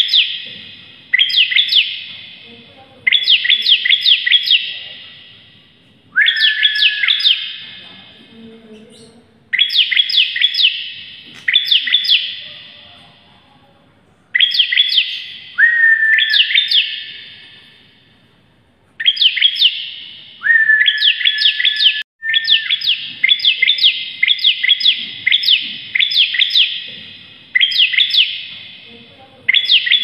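Bar-winged prinia (ciblek) singing in loud bursts of rapid, sharp, high chirps, about a dozen in all, each lasting a second or two and some ending in a lower held note. Each burst trails off in a ringing echo.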